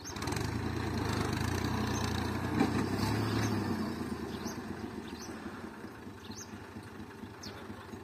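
Massey Ferguson 260 tractor's three-cylinder diesel engine running as it hauls a heavily loaded trolley: a steady low drone, loudest for the first few seconds and then fading. A few faint high chirps come through in the second half.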